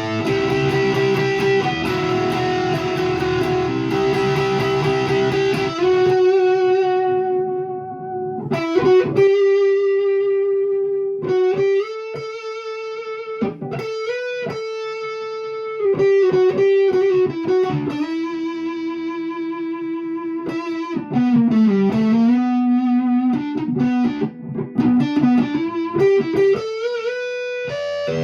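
1989 Fender HM Strat electric guitar played through a tube amp. It opens with about six seconds of dense strummed chords, then moves to sustained single-note lead lines with string bends, vibrato and a deep pitch dip just past twenty seconds.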